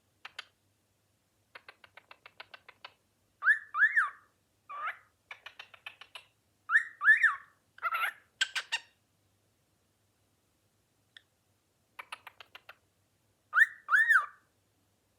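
Cockatiel chattering and whistling: runs of quick, dry clicking chatter alternate with pairs of short whistled notes that rise and fall, the pattern coming three times with pauses between.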